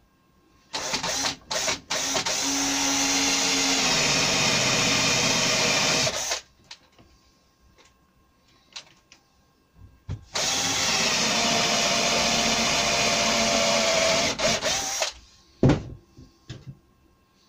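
Cordless drill running into the timber of a curved brace in two long runs of about five seconds each, with a couple of short trigger blips before the first; its pitch sinks as it takes load. A few clicks and a knock follow near the end.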